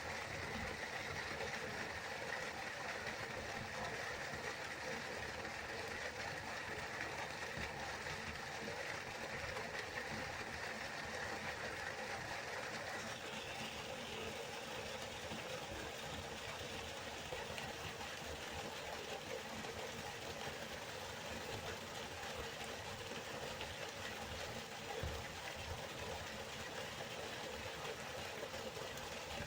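Waterfall: steady rushing of falling water, its tone shifting slightly about 13 seconds in.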